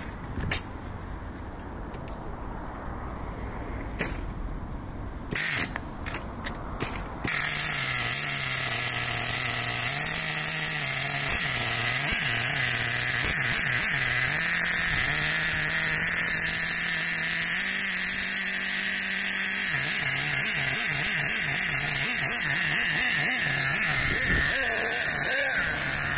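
LRP ZR.30 nitro engine in an HPI Savage RC monster truck being started: a few clicks and knocks, then about seven seconds in it catches and runs steadily with a high buzzing rattle, its pitch wavering slightly.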